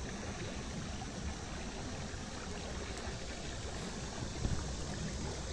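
Steady rush of flowing river water, with a brief low bump about four and a half seconds in.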